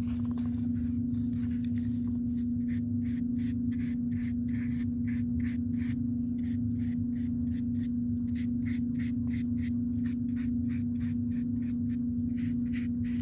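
A paintbrush brushing wet paint over foam shapes glued to cardboard: short scratchy strokes, about two to three a second, starting about two seconds in. Under them runs a steady low hum.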